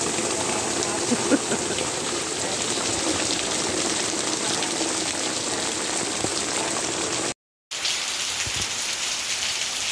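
Heavy rain pouring down, a steady hiss of rain hitting the street and roofs. It cuts out completely for a split second about seven and a half seconds in, then carries on as before.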